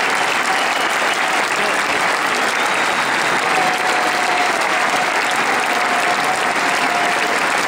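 A large concert audience giving a standing ovation, dense steady applause with no let-up.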